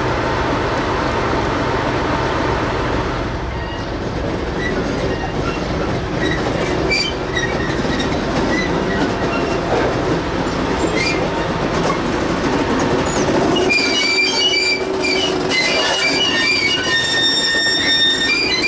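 Diesel locomotive engine running with a steady low hum for the first few seconds. After that the locomotive rolls slowly past over curved track, its wheels squealing in high, wavering tones that start to come thick and fast about two-thirds of the way through.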